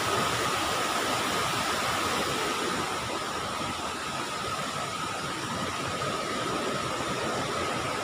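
Steady rushing noise of a waterfall, with a thin steady whine above it.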